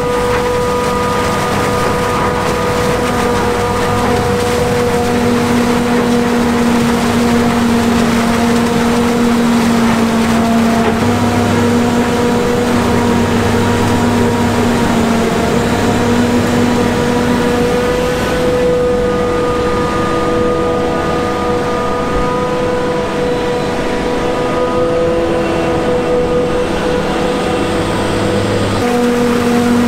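Claas Jaguar 970 self-propelled forage harvester chopping standing maize at full throttle right alongside, a loud steady machine sound with a constant whine, mixed with the tractor's engine hauling the silage trailer.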